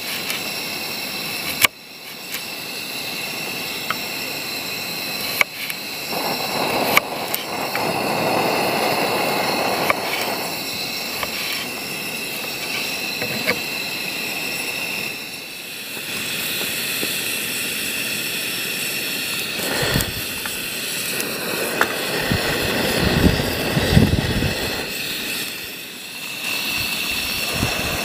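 A knife slicing baby potatoes on a wooden cutting board, giving a few sharp clicks as the blade meets the board, over a steady rushing background noise with high ringing tones.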